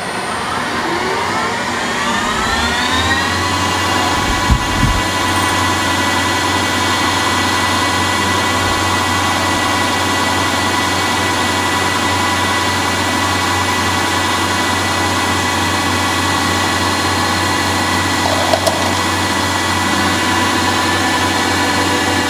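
Ganesh CNC lathe spindle spinning up with a rising whine over the first few seconds, then running at a steady speed through a dry turning cycle on brass bar stock. A couple of short knocks about four and a half seconds in and near the end.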